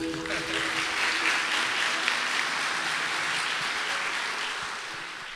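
A crowd applauding, steady and then fading out toward the end.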